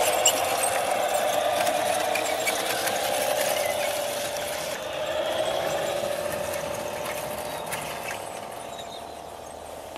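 Tamiya Scania R730 radio-controlled truck driving past and away with its tanker trailer: a steady mechanical whine from its drive that wavers slightly in pitch and slowly fades.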